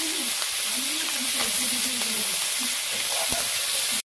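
Small catfish frying in hot oil in a steel kadai: a steady sizzle with a few faint crackles. It cuts off abruptly at the end.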